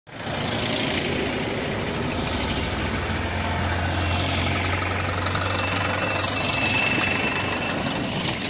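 Engines of a convoy of small vans and an SUV driving past: a steady engine rumble with a low hum, and a faint high whine briefly joining around six to seven seconds in.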